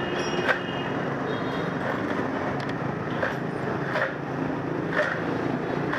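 Steady road traffic noise with a few short, sharp knocks at irregular intervals.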